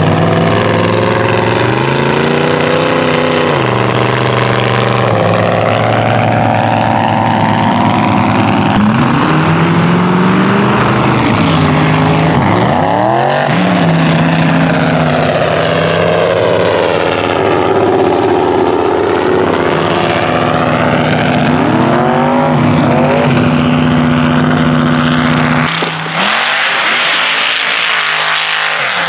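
Mega mud truck engine revving hard under load, its pitch repeatedly climbing and falling as the truck drives through mud and dirt. Near the end the sound changes abruptly.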